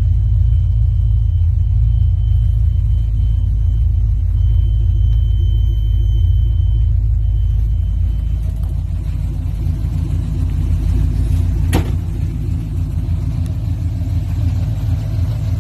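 The engine of a 1985 Chevrolet C10 custom truck idling with a steady low rumble. A single sharp knock comes about twelve seconds in.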